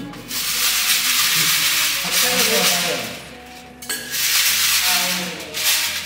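Crushed stone aggregate shaken in a round 12.5 mm metal sieve, the stones rattling and scraping against the mesh and rim. It comes in two spells with a short break just past halfway.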